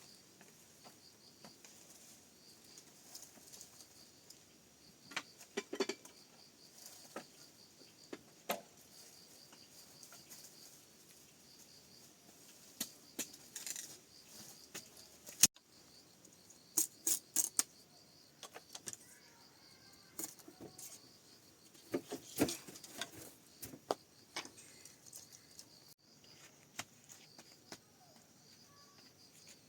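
Faint insects chirping, an evenly pulsing high trill, under scattered clicks, knocks and clatters. The loudest is a single sharp knock about halfway through.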